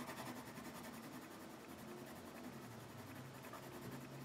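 Faint scratching of a colored pencil shading back and forth on paper.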